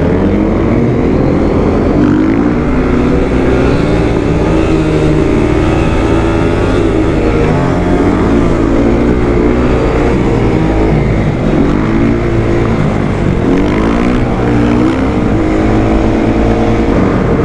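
Motorcycle engine running under way, its pitch climbing and dropping again and again as the throttle is worked.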